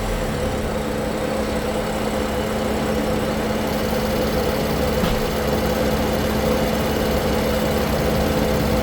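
BMW M4's twin-turbocharged straight-six idling steadily, with a constant droning tone over the idle.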